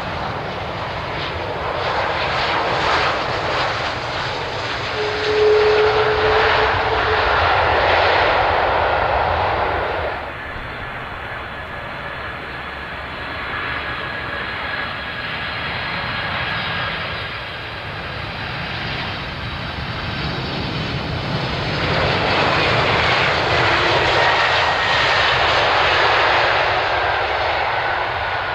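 Airbus A330 jet engines running as the airliner passes low over the runway on landing, loudest over the first several seconds. After a sudden cut, a Boeing 747 freighter's engines grow louder on final approach and touchdown, with a thin whine sliding slowly down in pitch.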